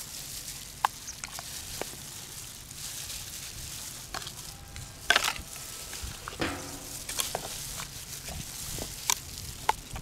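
Wet squelching and scattered sharp clicks as plastic-gloved hands and a small knife work through the flesh of an opened freshwater pearl mussel, with a couple of louder crackly bursts about halfway through.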